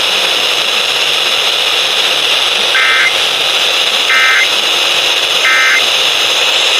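Emergency Alert System end-of-message signal: three short bursts of warbling digital data tones about a second and a half apart, heard through a radio over a loud, steady hiss of FM static.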